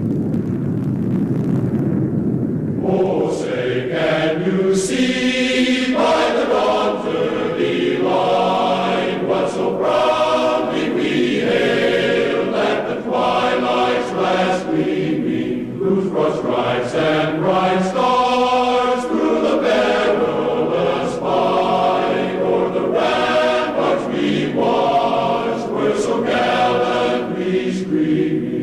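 A low rumbling noise, then about three seconds in a choir starts singing, many voices in held, chant-like chords.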